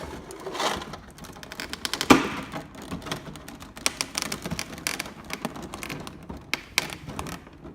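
Irregular light clicks, taps and rustles of plastic figure parts and packaging being handled, with a louder knock about two seconds in.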